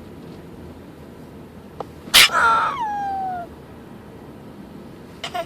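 A single high-pitched vocal call about two seconds in, sharp at the start and then sliding down in pitch over about a second.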